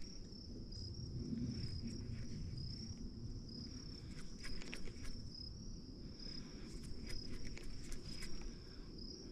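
Faint high-pitched insect trill, pulsing steadily, over a low rumble, with a few light clicks scattered through.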